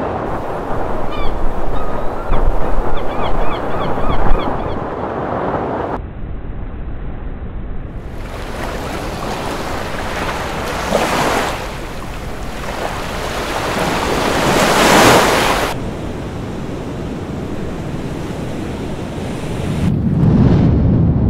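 Heavy surf on a rough sea, waves breaking and washing in, with wind gusting on the microphone. Two big waves build and crash about halfway through, and a few faint high calls sound in the first seconds.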